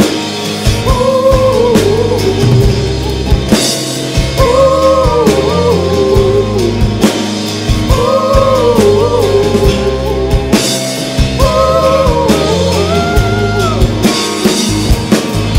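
Live acoustic guitar, electric bass and drum kit playing a song, with wordless "ooh" vocals sung in long, held phrases over the band.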